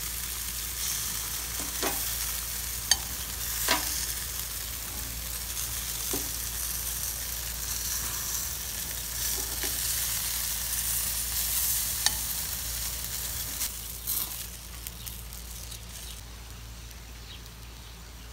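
Pork longganisa sausages sizzling on a hot grill grate, with sharp clicks of metal tongs against the sausages and grate as they are turned and lifted off. The sizzle fades near the end.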